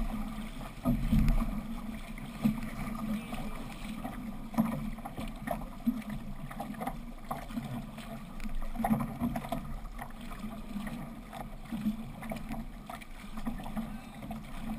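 Water splashing and rushing along a six-person outrigger canoe's hull and float while the crew paddles, with paddle blades entering the water in uneven, repeated strokes.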